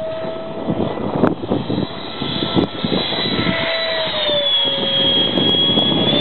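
A Starmax 90 mm electric ducted fan RC F-16 jet flying past with a steady high whine, which drops a little in pitch about four to five seconds in as the jet goes by. The fan runs on an ESC whose timing the pilot says is off.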